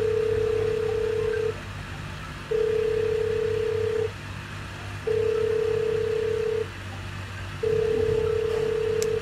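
Zalo call ringback tone: four long, steady single-pitch beeps, evenly spaced, while the outgoing call rings unanswered. A small click comes just before the end.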